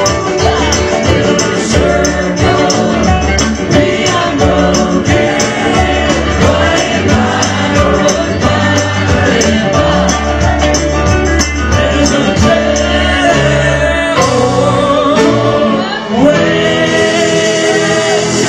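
A band playing a song with singing voices over a steady beat; the music dips briefly about sixteen seconds in and carries on.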